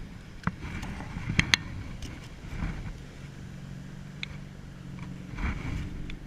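A few sharp knocks and clicks, like gear being handled in a kayak, then a low steady motor hum that comes in about three seconds in.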